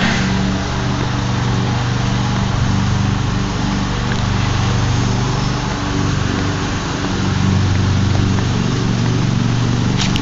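An engine running steadily with a low, even hum that drops slightly in pitch about seven seconds in, over a steady hiss.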